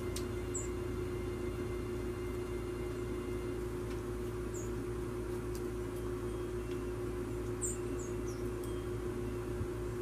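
Small winter songbirds at a feeder giving short, high call notes: one about half a second in, one near the middle, and a quick run of three near the end, each dropping slightly in pitch. A few light clicks sound in between, over a steady low hum.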